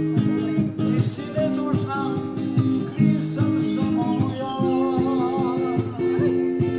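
Music: an acoustic guitar playing plucked and strummed chords, with a voice singing over it.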